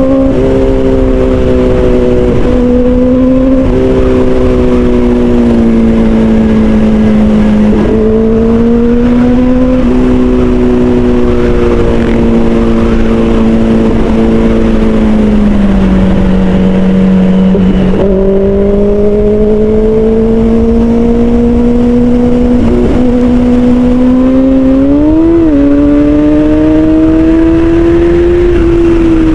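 2024 Kawasaki Ninja ZX-4RR's 400 cc inline-four engine running at high revs through an Austin Racing aftermarket muffler, heard from the rider's seat. The pitch eases down in a few steps to its lowest around the middle, then climbs steadily as the bike accelerates, with a quick sharp rise and fall near the end.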